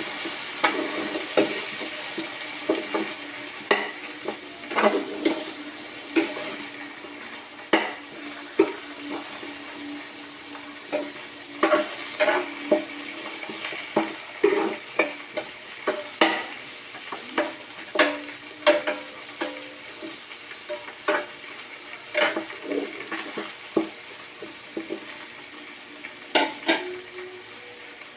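A spatula knocking and scraping against a cooking pan at irregular intervals as food is stirred while it fries, over a steady sizzle.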